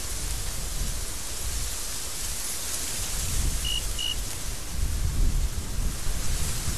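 Strong desert wind blowing in gusts, with a deep buffeting rumble and a hissing rush, growing louder about five seconds in. Two short high peeps sound a little past the middle.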